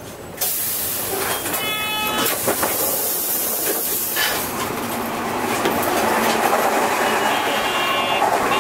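Interior running sound of a Hino Rainbow II medium-size non-step bus. About half a second in there is a sudden loud hiss, then a short beeping tone near two seconds, then engine and road noise that grows steadily louder.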